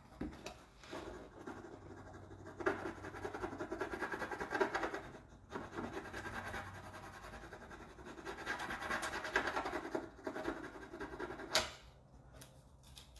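A rub-on transfer being rubbed down onto the side of a painted hat box: dry scratching and rubbing in several long spells of quick strokes, with one sharp click near the end.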